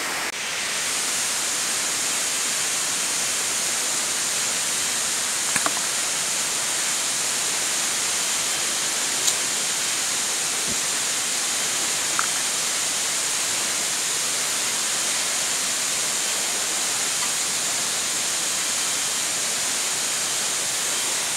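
Waterfall rushing in a steady, even hiss, with a few faint ticks.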